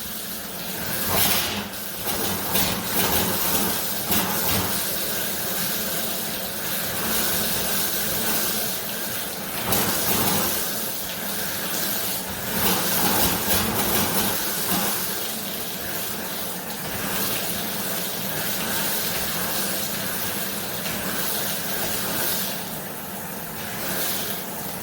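Well water spurting and hissing out of the household plumbing, surging unevenly as air comes through the line with it. The well is sucking air into the system, which the inspector takes for a slightly air-bound well.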